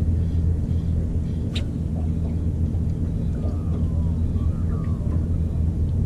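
Boat motor running steadily with a low hum, and a single sharp click about a second and a half in.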